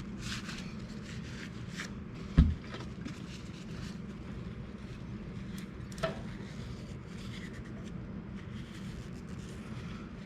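Faint rubbing and handling of bicycle hub and freewheel parts, with a sharp knock about two and a half seconds in and a lighter click about six seconds in, over a steady low hum.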